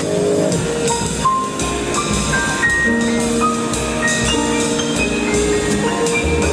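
Live instrumental music from a trio of Nord keyboard, upright double bass and drum kit: a melody of single notes over held lower notes, with cymbal strokes.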